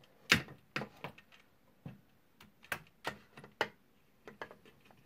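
A string of small sharp clicks and taps, irregular and about eight in five seconds, the loudest just after the start: screws being fitted by hand into the printer's metal frame.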